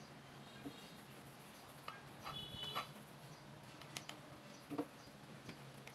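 Soft, scattered taps and clicks from hands rolling and pressing dough on a wooden board, a few ticks spread through the stretch, over a faint steady hum.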